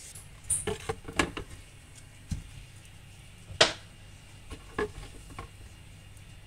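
Cooking utensils knocking and clinking against frying pans: a quick cluster of knocks in the first second and a half, one sharp clack about three and a half seconds in, and lighter knocks near five seconds.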